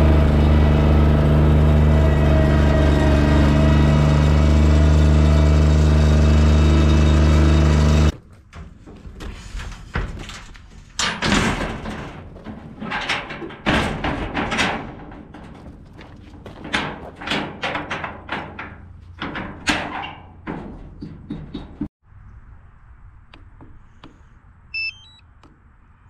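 Toro Z Master zero-turn mower's engine running steadily, cutting off suddenly about eight seconds in. Then a long run of metal clanks and rattles as the utility trailer's expanded-metal ramp gate is handled, followed near the end by a few short electronic beeps.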